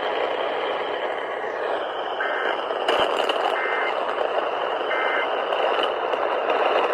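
Three short bursts of EAS digital data tones, the SAME end-of-message code that closes the alert, about a second and a half apart over steady radio static.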